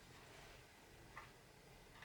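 Near silence: room tone with one faint click a little over a second in.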